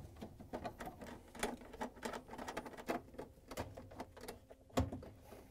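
Irregular light clicks and ticks of screws being driven by hand with a Torx 15 screwdriver into a dishwasher door's front panel, several a second, with one sharper knock near the end.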